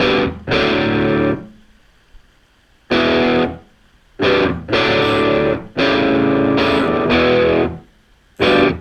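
Background music: a distorted electric guitar playing chords in short blocks, each held up to a second or so and broken by brief gaps.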